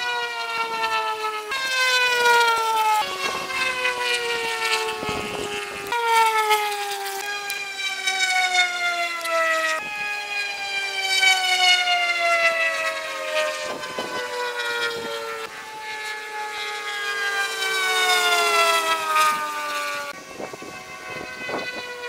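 Propeller airplane engines passing overhead, played back sped up, giving a high whine of many tones that slides slowly down in pitch. The sound jumps abruptly to a new pitch every few seconds where pieces of footage are spliced together.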